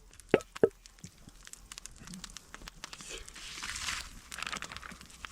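Crinkling and rustling, with many small ticks, louder in the second half. Two sharp clicks come about half a second in.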